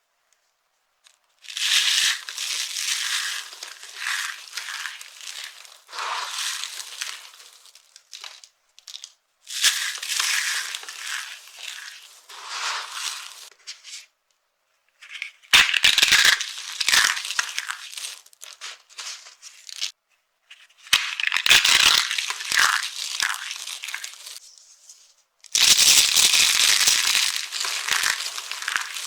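Dry soap being crushed, crunching and crackling in about five bouts of a few seconds each, with short pauses between them. Some bouts carry a duller pressing thud underneath.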